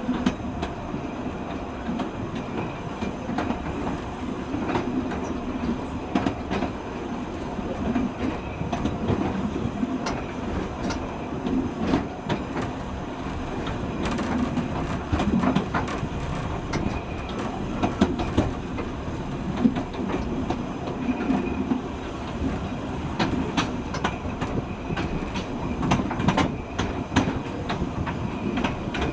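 Narrow-gauge railway train running along the Corris Railway's 2 ft 3 in gauge track: a steady rumble with irregular clicks and knocks of the wheels over the rail joints.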